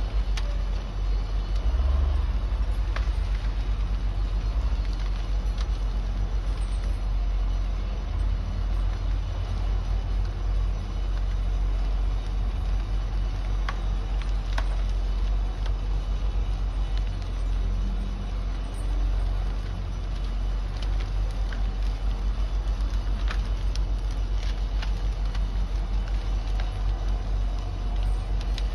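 Heavy logging machine's diesel engine running steadily at a low rumble, with a few faint sharp clicks now and then.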